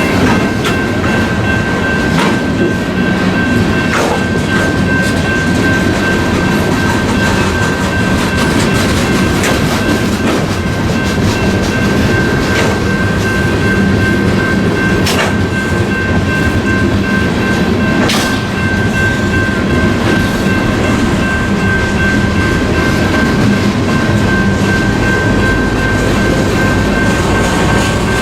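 A train rolling steadily past at close range, its wheels rumbling on the rails, with a steady high ring and an occasional sharp clack.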